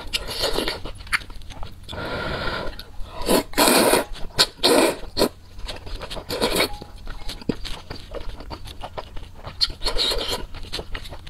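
Close-miked eating sounds: noodles being slurped from spicy soup and chewed, in irregular wet bursts, the loudest run of slurps from about two to five seconds in and more near the end.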